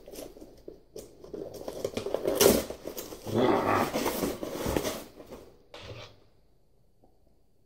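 Cardboard box being worked open by hand: scraping, rustling and tearing of the packaging with a few sharp knocks, stopping after about five and a half seconds and then near silence.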